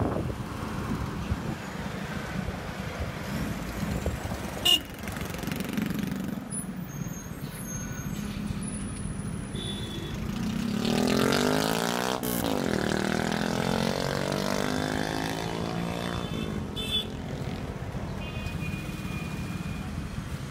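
Road traffic heard from a moving vehicle: a steady engine hum, with a louder vehicle sound swelling and sliding in pitch around the middle.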